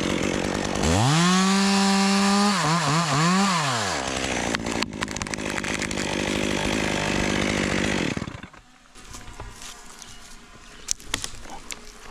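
Chainsaw revved up to full throttle about a second in and held there, then throttled up and down several times and let fall back. It runs on more roughly until it drops away at about eight seconds.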